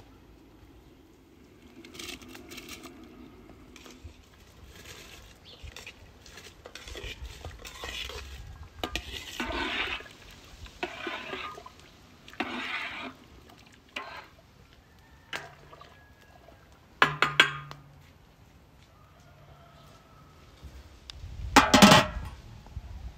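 Water splashing and pouring in a large metal cooking pot, with a few metal clinks. A hammered metal lid is set on the pot with a loud clank near the end.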